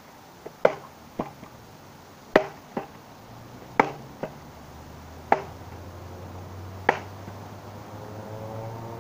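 Wooden knocks of a stick being struck hard again and again to break it. There are five heavy blows about a second and a half apart, most followed by a lighter knock. A faint low hum builds up in the second half.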